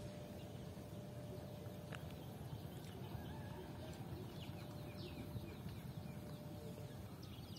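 Faint outdoor ambience: a low steady rumble with a faint hum, and birds giving short, falling chirps in the second half.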